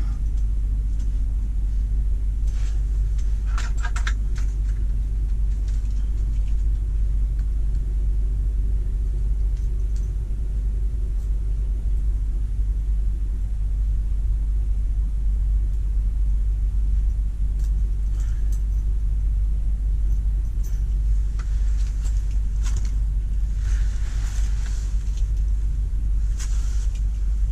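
A steady low rumble throughout, with faint rustling and clicks of gear being handled about four seconds in and again near the end.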